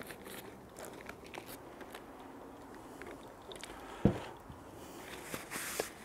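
Potting compost crackling and crunching as it is added and pressed down by hand around a root ball in a terracotta pot, with one dull thud about four seconds in and a soft rustle near the end.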